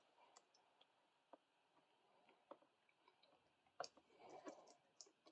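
Near silence with a few faint clicks and a little rustling from wire leads and plastic battery quick-connectors being handled; the clearest click comes a little after halfway.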